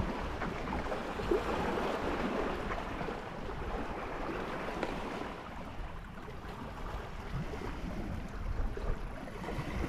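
Steady outdoor wash of wind and lake water lapping at the bank.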